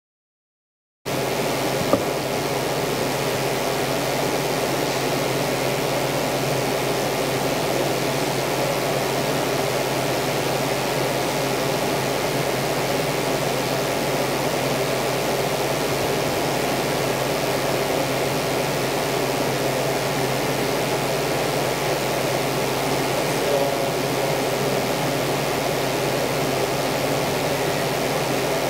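Steady, even room noise of the kind air-conditioning makes, with a faint steady tone in it and no speech or music. The sound drops out completely for about a second at the start.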